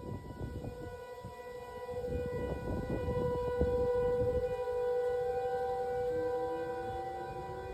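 Outdoor tornado warning sirens sounding a steady wail, the tone swelling and then slowly fading. A second, lower siren tone rises in pitch near the end, under a low rumble in the first half.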